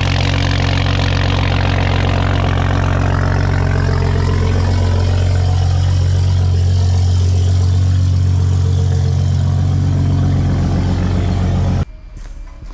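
Toyota Supra (A90) engine and exhaust droning steadily while driving at an even cruise, a deep hum held at one pitch. It cuts off suddenly near the end.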